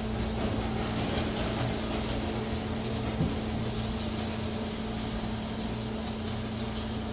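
Microwave oven running with a steady hum over a constant hiss of noise.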